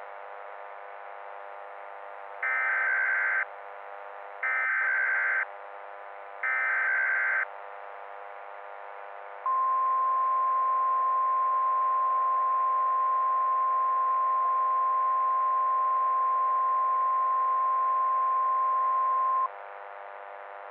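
Emergency Alert System signal: three one-second bursts of warbling SAME header data a second apart, then a single steady high attention tone held for about ten seconds, the alert signal that opens a weather warning broadcast. A faint steady hum runs underneath.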